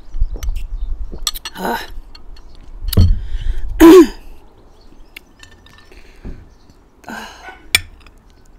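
A woman clears her throat loudly about four seconds in, with shorter throat sounds before and after it. A fork clicks and scrapes against a plate.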